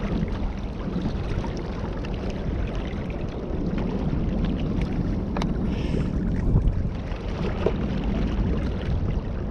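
Steady, rumbling wind noise buffeting an outdoor camera microphone, with no speech.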